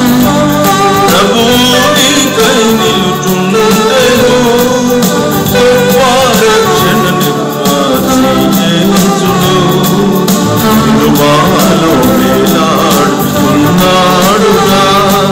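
A man singing a gospel song into a microphone, accompanying himself on an electronic keyboard.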